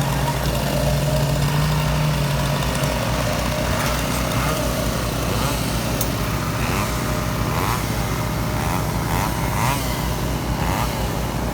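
Chainsaw engines running continuously, with the engine note shifting about three seconds in.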